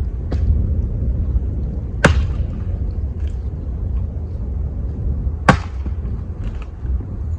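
Two sharp knocks about three and a half seconds apart, with a few fainter clicks, over a steady rumble of wind on the microphone.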